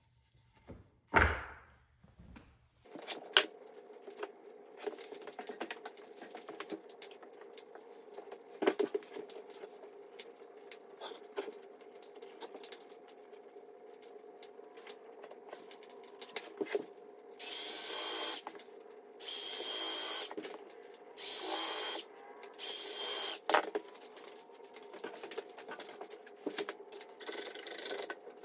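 Cordless impact driver driving screws into the wood of a table frame in five bursts of about a second each. Four come close together midway and one comes near the end, over a steady low hum, with a single sharp thump about a second in.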